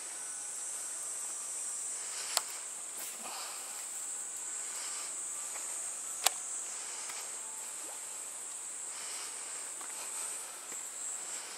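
A steady, high-pitched chorus of insects, with two sharp clicks about two seconds and six seconds in.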